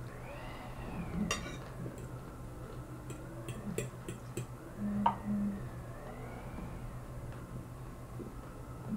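Metal fork clicking lightly against a plate a few times, with quiet chewing, over a steady low hum.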